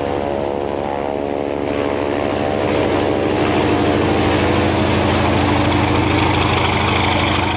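Antonov An-2 biplane's nine-cylinder radial engine running steadily with its propeller turning, a loud, even drone.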